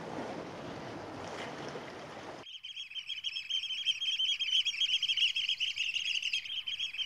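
A soft, even hiss. About two and a half seconds in it cuts suddenly to a dense chorus of many birds calling at once, a steady, high chattering that is louder than the hiss.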